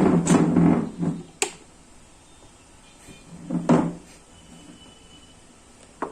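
Things being handled and knocked on a workbench: a clatter lasting about a second at the start, a sharp click about a second and a half in, and another short clatter near four seconds.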